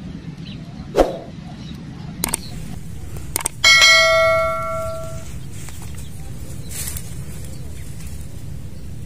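A single sharp airgun shot about three and a half seconds in, firing a line-tethered fishing dart, followed by a metallic ringing ping that fades away over about a second and a half.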